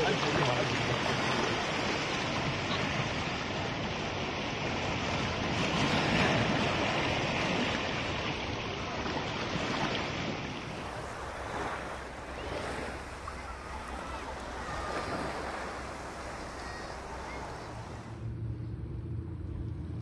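Ocean surf washing in a dense, steady noise that swells about six seconds in and eases off after about ten seconds. Near the end it changes abruptly to a quieter, steady low motor hum.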